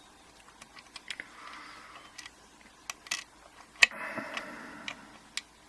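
Pick and tension tool working the pins of a seven-pin dimple lock: faint scattered metallic ticks and short scrapes, with one sharper click a little under four seconds in.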